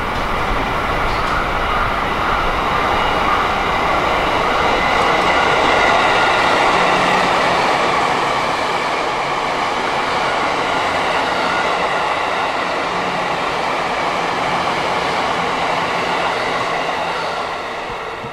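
JR East E257 series electric multiple unit passing through a station without stopping: a steady running sound of wheels on rail and traction equipment, loudest about six seconds in and easing a little as the train goes by.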